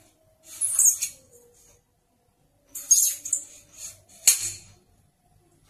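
A metal shroud is slid and pushed onto the barrel of a Gaman PCP air rifle. Rubber O-rings inside make it a tight, stiff fit, heard as short scraping rubs with a faint thin squeak beneath, and a sharp click a little after four seconds in.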